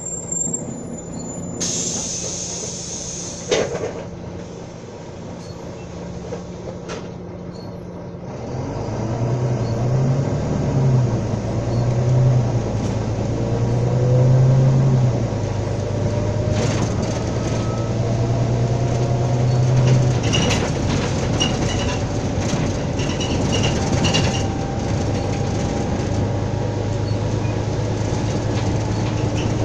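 Volvo B9TL double-decker bus heard from the upper deck: its Volvo D9B six-cylinder diesel idling at a stop, with a burst of air hiss about two seconds in. About eight seconds in the bus pulls away, the engine working hard through the automatic gears, its note stepping with each change, and a rising transmission whine running over it.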